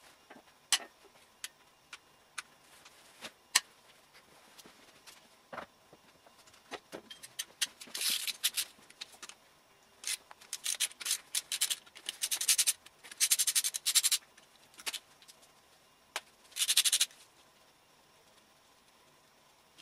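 Hand tools working on the metal underside of an engine: scattered clicks and knocks, then, from about eight seconds in, five short bursts of rapid clicking.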